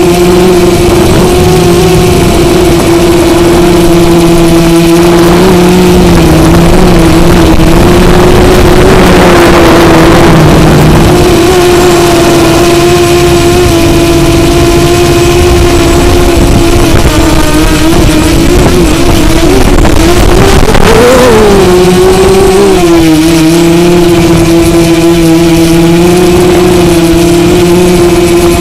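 Drone's electric motors and propellers running with a steady hum over a hiss of rushing air, heard close up from the drone's own camera. The pitch wavers and rises briefly about three-quarters of the way through, then settles.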